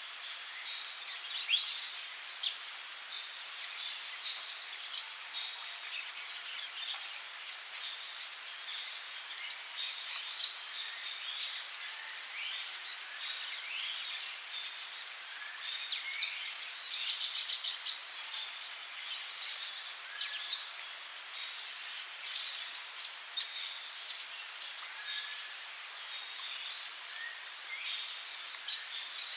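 Tropical forest ambience: a steady high-pitched drone of insects, with many short bird chirps and calls scattered throughout and a quick run of repeated notes a little past halfway.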